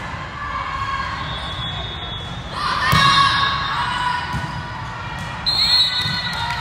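Indoor volleyball rally: the ball is struck with echoing thuds, the sharpest about three seconds in, under high-pitched shouts and shoe squeaks on the court. These are loudest around the middle and again near the end.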